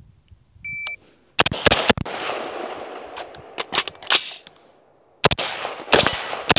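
A shot timer beeps once, under a second in. About half a second later an Anderson-built AR-15 rifle starts firing, a string of sharp shots in uneven clusters over the next several seconds.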